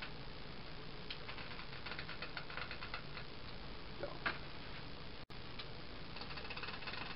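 A blade slicing through the tough rubber of a moped tire's tread makes a rapid run of small ticks and crackles. There is one louder knock about four seconds in.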